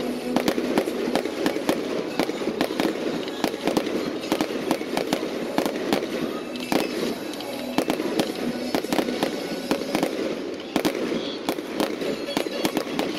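Fireworks display going off without a pause: a fast, irregular string of sharp bangs and crackles from bursting shells, several a second.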